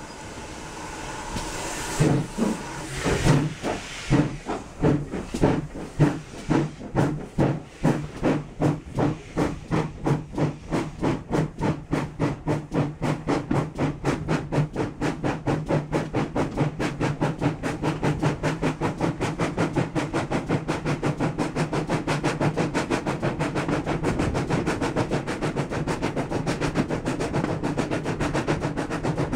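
Steam tank locomotive's exhaust beats as it hauls the train away, slow at first and quickening steadily as it gathers speed, until the beats run together into a fast, even chuff.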